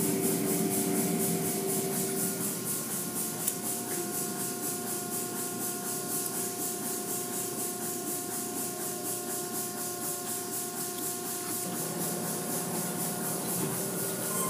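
Automatic car wash working over a car, heard from inside it: water and foam spraying and cloth brush curtains rubbing across the body, a steady hiss with a few faint steady machine tones. A single knock comes about three and a half seconds in.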